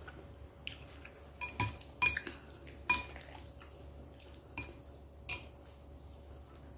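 Chopsticks and a metal spoon clinking against a ceramic noodle bowl while eating: about seven short, sharp clinks with a brief ring, bunched in the first three seconds with two more later, the loudest about two seconds in.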